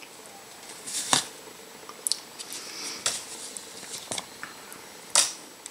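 Playing cards being pushed off the top of a deck one at a time, each card giving a short papery snap, about once a second.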